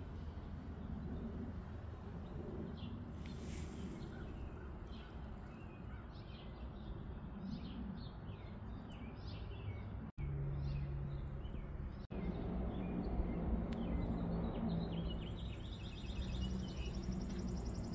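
Outdoor garden ambience: birds chirping in many short notes over a steady low background rumble. The sound drops out for an instant twice near the middle, where the clip is cut.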